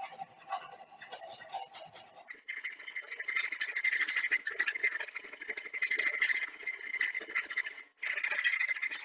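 Steel hand file rasping along the edge of a knife blade forged from bearing steel, in repeated strokes. The rasp gets brighter and louder about two seconds in and cuts out for a moment near the end.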